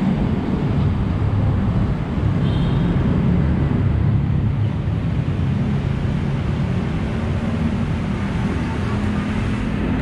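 Steady low rumble of street traffic, with motorbikes passing on the road.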